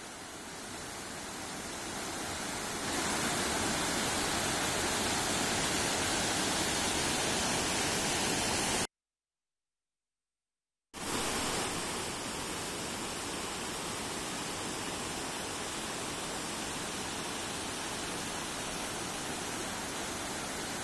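Floodwater rushing over a check dam's spillway: a steady rush of water that grows louder about three seconds in. It cuts out to silence for about two seconds near the middle.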